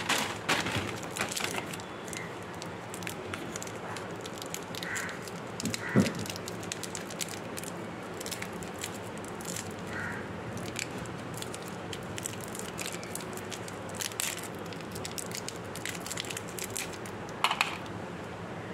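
Crinkling and crackling of plastic Pulse candy wrappers being torn open and unwrapped by hand, with a sharp knock about six seconds in.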